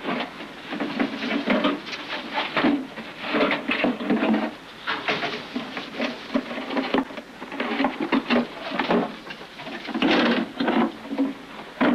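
Irregular clattering and rattling of wire-mesh mink cages and their nest boxes, a quick run of knocks with short pauses.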